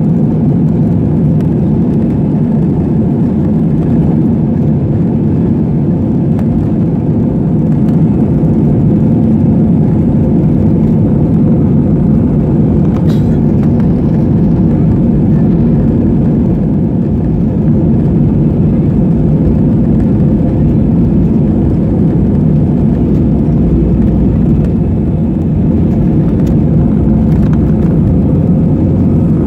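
Steady low rumble of cabin noise inside a jet airliner as it taxis on the ground, holding an even level without building up.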